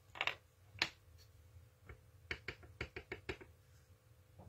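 Light clicks and taps of plastic on a desk as an ink pad case is opened and an acrylic stamping block with a rubber stamp is handled, with a quick run of small taps about two seconds in.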